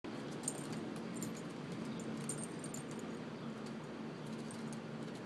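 Light metallic jingling of a small dog's leash clip and harness hardware as the dog moves, in a few short clusters during the first three seconds, over a steady low background hum.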